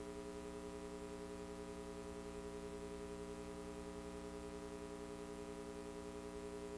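Steady electrical hum, a mains-type buzz made of many even overtones, with nothing else over it.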